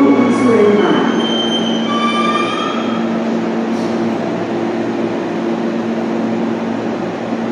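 Osaka Metro Sakaisuji Line subway train moving at the station platform. Several high whining tones sound in the first three seconds, then a steady low hum continues.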